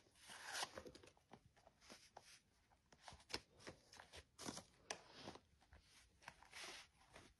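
Faint rustling, crinkling and clicking as a macaque paws through a leather wallet and handbag, pulling out cards and paper.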